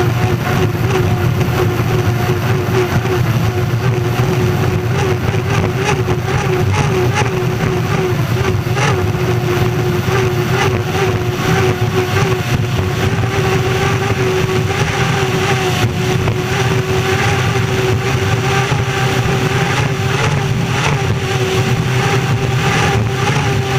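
Unlimited hydroplane's gas turbine engine running under power, heard from onboard. It is a loud, steady roar with a whine that creeps slightly higher in pitch, over constant rushing noise.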